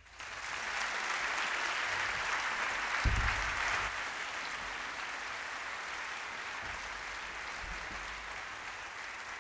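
Concert audience applauding at the end of a jazz piece: steady clapping that starts right after the music stops and eases off a little after about four seconds. There is a brief low thump about three seconds in.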